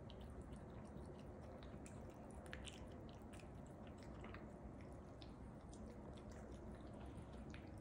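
A cat eating canned wet food: faint, irregular little wet chewing clicks over a low steady hum.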